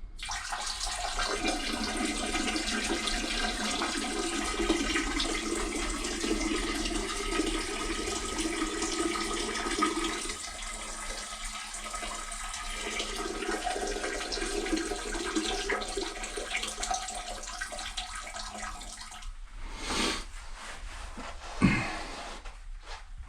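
A steady stream of urine splashing into a toilet bowl, stopping about 19 seconds in, followed by a few short knocks.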